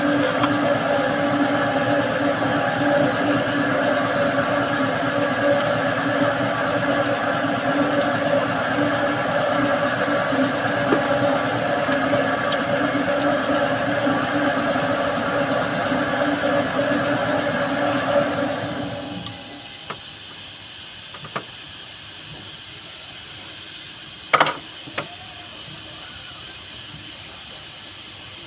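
Diesel engine running steadily, then shut off about 19 seconds in, dying away over a second. Afterwards a few light clicks and one sharp knock about 24 seconds in.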